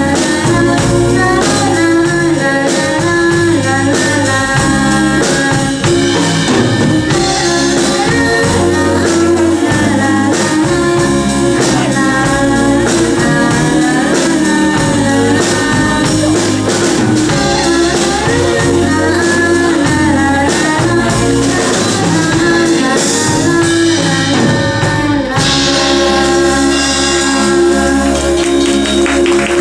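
Live band (guitar, drums, tambourine) playing a pop song with a singer's voice over it. About 25 seconds in, the band lands on a long held chord with a cymbal wash, as at the close of the song.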